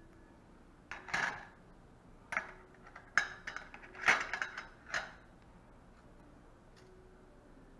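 Steel surgical instruments clattering in a stainless steel instrument tray as they are handled and picked out. A run of metallic clinks and rattles comes in several bunches from about one to five seconds in.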